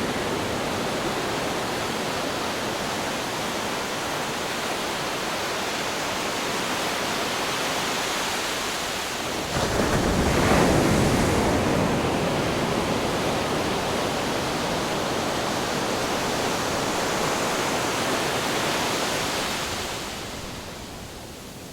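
Ocean waves breaking on rocks: a steady wash of surf, with one heavier wave crashing about ten seconds in, and the sound falling away briefly near the end before the next wave comes in.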